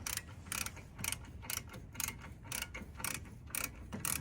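Ratcheting socket wrench working a brake caliper bolt, its pawl clicking in a short burst on each back-swing, about twice a second.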